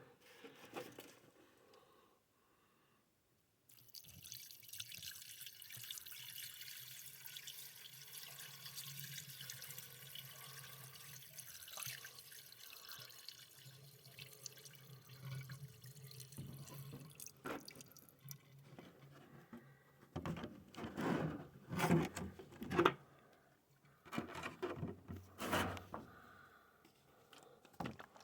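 Liquid being poured into the Kubota's radiator to refill it after a hose replacement: a steady pouring stream from about four seconds in to about sixteen, then a run of louder, irregular sounds a few seconds before the end.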